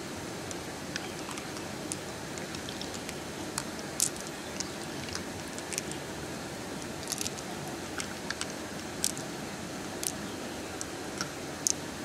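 Pearls clicking lightly against one another as they are picked out of a freshwater mussel's wet flesh and gathered in a palm, with soft squelches, over a steady rush of running water. The clicks come irregularly, one or two a second.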